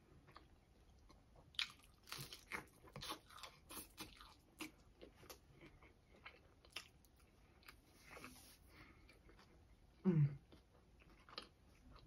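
Close-up chewing and crunching of a crispy fried birria taco dipped in consommé. The crisp crunches are densest in the first few seconds and then thin out to softer chewing. There is a short hummed vocal sound about ten seconds in.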